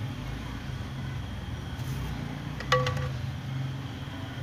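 A single metallic clink about two and a half seconds in, ringing briefly like a struck aluminium pot, over a steady low hum.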